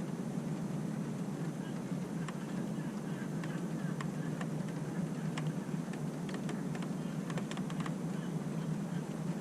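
Steady rain falling, with scattered sharp ticks of drops striking a hard surface close by.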